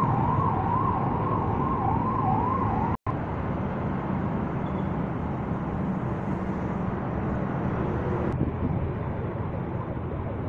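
A vehicle siren yelping, its pitch rising and falling quickly about two or three times a second over a steady rumbling background. It cuts off abruptly about three seconds in, leaving only the steady background noise.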